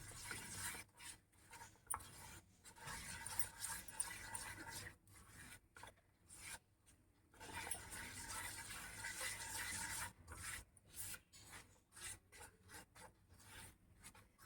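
Almonds and grated coconut being stirred and scraped around a pan as they roast in ghee. The scraping is faint and comes in short strokes with brief pauses.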